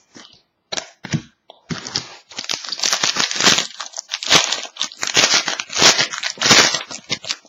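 Foil trading-card pack being torn open and its wrapper crinkled, in irregular crackling bursts that grow denser from about two seconds in.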